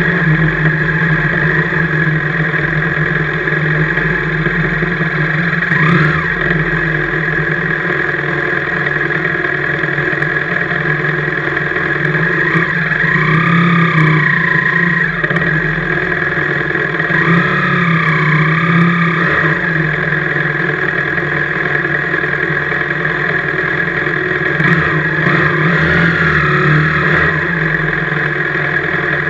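BMW motorcycle engine running at low speed, a steady drone in which the engine note rises and falls three times.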